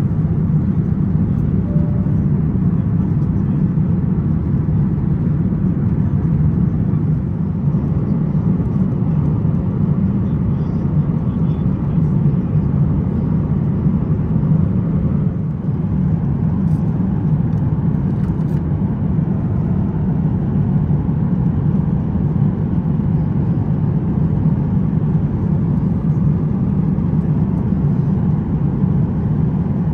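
Steady low rumble of cabin noise inside an Airbus A350-1000 airliner in flight: engine and airflow noise heard from an economy seat, even and unbroken.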